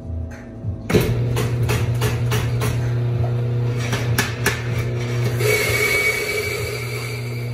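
Espresso machine at work: a steady pump hum starts abruptly about a second in, with repeated knocks and clicks of the portafilter and metal parts at the group head. A hiss with a faint whistle joins about five and a half seconds in.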